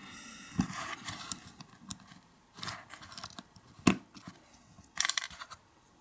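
Small metal clicks and scraping as a tool works at a retaining clip on the back of a brass lock cylinder. A rustling scrape at the start, a few sharp clicks, the loudest about four seconds in, and a quick run of clicks near the end.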